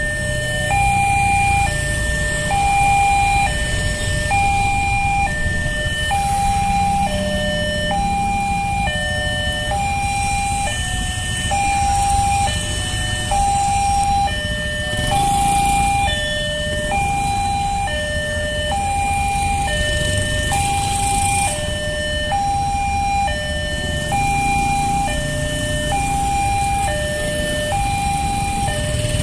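Railway level-crossing warning alarm sounding a steady alternating high-low two-tone signal, about one tone a second, warning that a train is approaching. A low rumble of idling motorcycle and car engines waiting at the crossing lies underneath.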